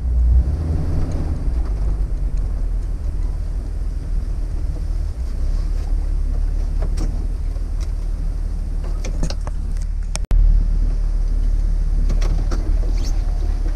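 Jeep Wrangler TJ's 4.0-litre inline-six heard from inside the cabin as a steady low engine and drivetrain rumble while it drives slowly, with a few light rattles. After a brief break about ten seconds in, it sits idling, stopped.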